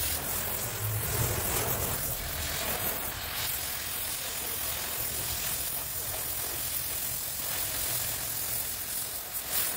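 Oxy-fuel cutting torch hissing steadily as it cuts a chamfer into the steel end of a truck rear axle housing.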